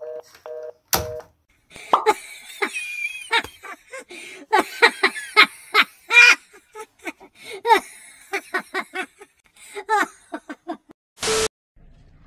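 A telephone handset clicks down on its base among a few short telephone tones. Then a cat makes a long run of short, quick meows and chirps, several a second, cut off near the end by a brief loud burst of noise.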